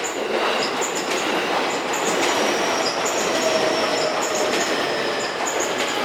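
Nambu Line E233-8000 series electric train running over a level crossing: loud, steady wheel-on-rail noise that sets in sharply at the start and holds throughout, with faint thin high tones above it.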